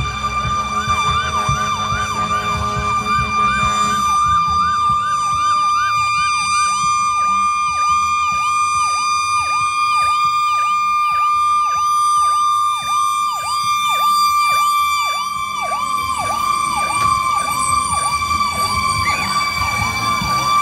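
Fire engine electronic siren sounding. A fast yelp, about three sweeps a second, changes about four seconds in to a slower up-and-down cycle of about two a second. Under it a steady high tone runs throughout, with a low engine rumble in the first few seconds.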